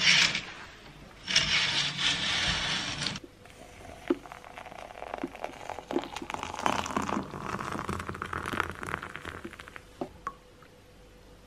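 Fabric curtains swished open along their rail, then a metal spoon clinking against a ceramic mug and water poured into it over coffee and sugar, with stirring and a few more clinks near the end.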